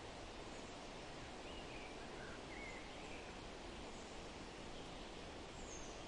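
Steady wind through forest trees, an even rush, with a few faint bird chirps in the middle and one higher chirp near the end.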